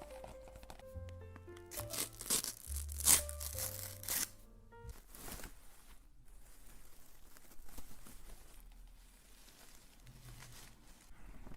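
Soft background music of held low notes that change in steps during the first five seconds, mixed with crinkling, tearing and scratching sounds from ASMR triggers; after that, only quieter scratching and crinkling go on.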